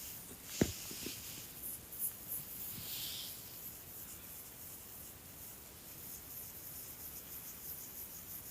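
A sleeping dog's quiet breathing: a soft hissy breath about three seconds in, a short sharp click or mouth smack just after half a second, and faint scratchy rustling around two seconds.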